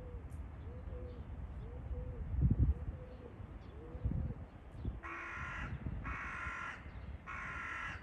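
A crow cawing three times in quick succession near the end, each caw lasting well over half a second. Underneath is a steady low rumble that swells briefly about two and a half seconds in.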